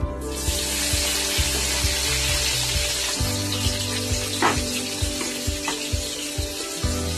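Chopped red onion and garlic dropped into hot refined oil in a frying pan, breaking into a loud, steady sizzle that starts suddenly just after the start.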